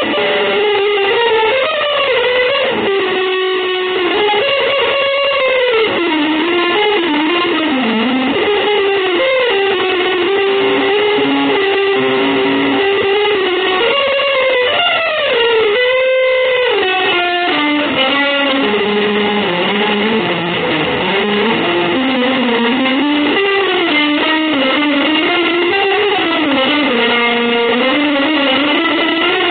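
Electric guitar playing a continuous melodic line with frequent pitch bends and slides, the notes sustained and running into one another.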